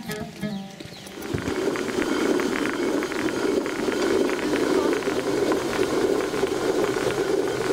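Traditional millstone turning and grinding grain into flour: a steady grinding noise with a fast rattle, starting about a second in.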